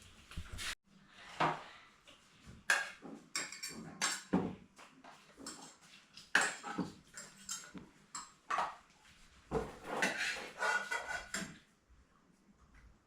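Dishes and cutlery clattering as they are handled: a string of separate knocks and clinks, some ringing briefly.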